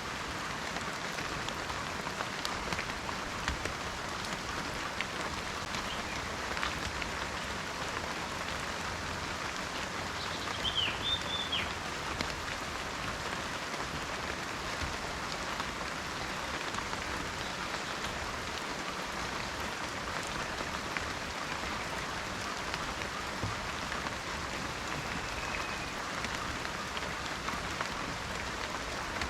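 Steady rain falling in a forest, an even hiss dotted with individual drop ticks. A bird gives a few short high chirps about eleven seconds in, and a faint whistle comes near the end.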